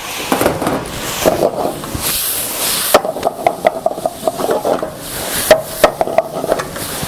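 Onions, garlic and bacon sizzling in oil in a nonstick wok while a wooden spatula stirs them, knocking and scraping against the pan, with a quick run of knocks from about three seconds in.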